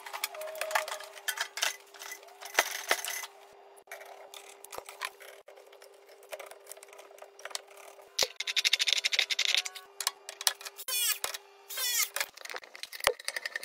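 Plumbing work on a water heater's pipe fittings: repeated metal clicks, clinks and knocks of wrenches and fittings, with a few short hissing stretches and a faint steady hum that stops near the end.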